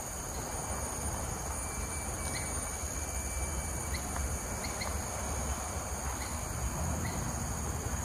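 Outdoor tropical ambience: a steady high-pitched drone of insects, with a few short bird chirps scattered through, over a low rumble.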